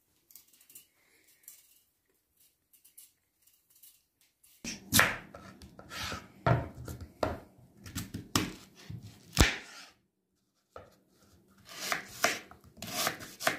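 Kitchen knife cutting peeled red beetroots on a wooden cutting board: irregular knocks of the blade against the board mixed with the wet sound of the knife going through the beet. For the first few seconds only faint small clicks are heard, then the cutting starts and runs on, stopping briefly about ten seconds in.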